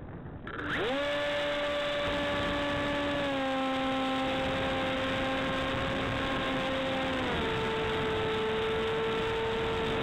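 Electric motor and propeller of a Hawk Sky RC foam trainer spooling up to a steady high whine about half a second in. The pitch steps down slightly around three seconds and again around seven seconds. Wind rushes over the onboard microphone underneath.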